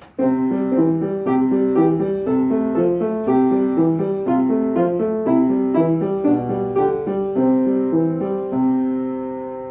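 Piano playing a short tune, melody notes over lower chords in a steady rhythm, ending on a held chord that fades away.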